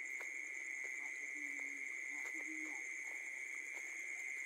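A night chorus of calling frogs: a steady high-pitched drone with a fast pulsing trill above it, and short low notes now and then.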